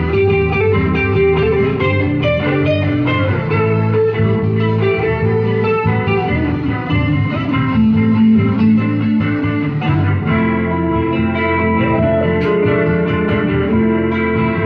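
A live guitar trio playing an instrumental piece: acoustic and electric guitars plucking melody lines and chords over low bass notes.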